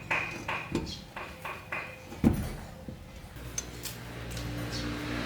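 Metal tools or parts clinking and clanking together in a quick irregular run, with two sharper metal knocks; music fades in near the end.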